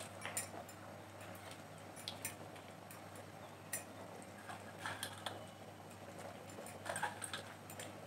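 Faint scattered ticks and light clicks over the soft bubbling of a thin curry gravy at the boil, as pieces of fried fish are dropped into the pot.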